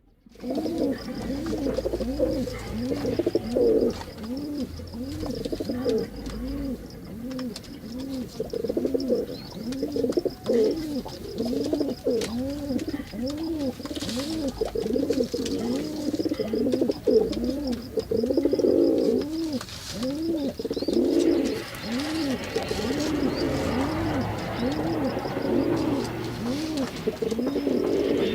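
Male pigeon cooing over and over, each coo a low note that rises and falls, about two a second without a break.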